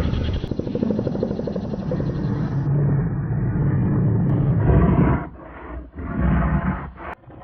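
Animal growls and roars edited together as a monster sound effect: a low, fast-pulsing growl, then two harsh roars about a second long each, the first a little before five seconds in and the second around six seconds in.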